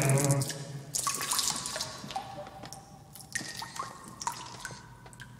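A man urinating into a toilet: the stream splashes into the bowl water and tapers off into a dribble of separate pitched drips, getting steadily quieter.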